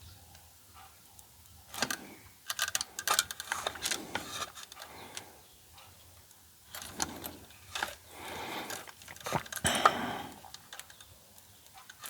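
Irregular small clicks, taps and short scrapes of hand tools and parts being worked on a circuit board while a component is desoldered, in two busy spells.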